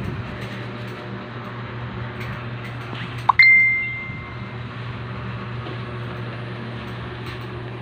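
A single bright clink about three seconds in that rings on for about a second, over a steady low hum.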